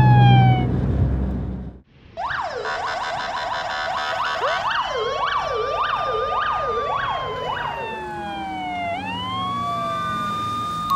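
Fire engine sirens, several at once: long wails gliding up and down, with a faster yelp cycling about twice a second. Before them, a siren tone falls in pitch over a low rumble and cuts off abruptly about two seconds in.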